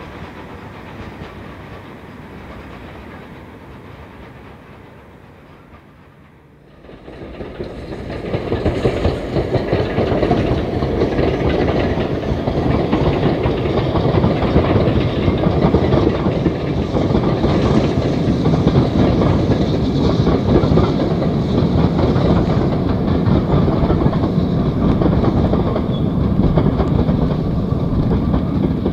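Steam-hauled passenger train fading away into the distance, then, after a sudden step louder about seven seconds in, a steam locomotive working a train of coaches past close by, its exhaust and the coaches' wheels clattering over the rail joints.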